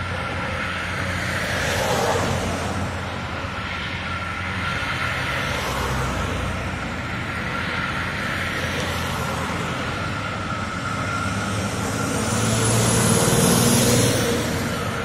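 Steady droning hum from the Novosibirsk TETs-2 combined heat and power plant, holding a constant pitch. Road traffic passes over it, swelling about two seconds in and again near the end.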